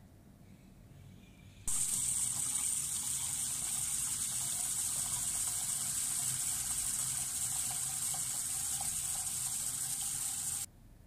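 Tap water pouring in a steady stream onto mung beans in a stainless steel pot, filling it. The stream starts suddenly about two seconds in and cuts off sharply near the end.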